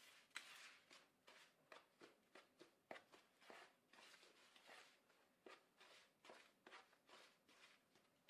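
Faint rustling and scraping of a hand mixing dry flour, oats and seeds in a plastic bowl, in short strokes about twice a second.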